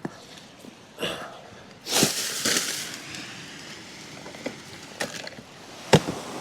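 Close handling noise from working with fishing tackle: a handful of sharp clicks and knocks, with a burst of rustling a couple of seconds in and the loudest knock near the end.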